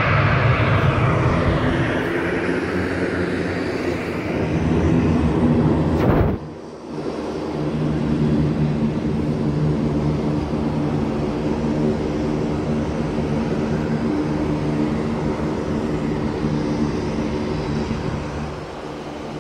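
Jet airliner engines: a loud jet rush that falls in pitch and fades over the first six seconds, then breaks off suddenly. After the break, a steady engine drone from a jet on the runway, with several held tones.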